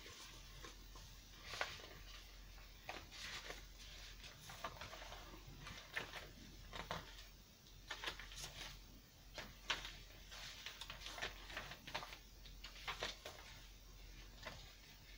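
Paper pages and inserts of a handmade junk journal being handled and turned: faint, scattered rustles and soft taps, over a low steady hum.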